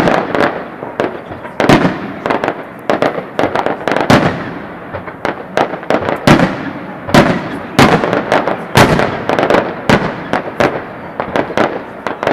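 Aerial firework shells bursting in a dense, irregular barrage: loud sharp bangs, often two or three a second, each trailing off in an echo.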